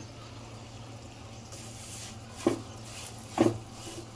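Low steady hiss with a faint hum, and two soft knocks about a second apart in the second half, as a wooden spatula stirs semolina and dry fruit roasting in ghee in a nonstick pan.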